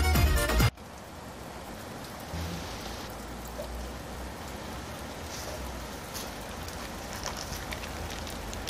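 The music cuts off under a second in, followed by a steady rain-like hiss with a low rumble and scattered light crackles, as a bag's zipper and a clear plastic zip-lock pouch are handled close to the microphone.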